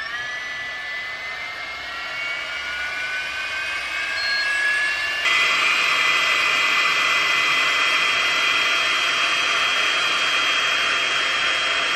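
GHD Duet Style hot-air styler (a hair dryer and straightener in one) running: its fan whines and rushes air, the whine slowly rising in pitch as it spins up. About five seconds in the sound steps up louder, with more rushing air and a steadier high whine.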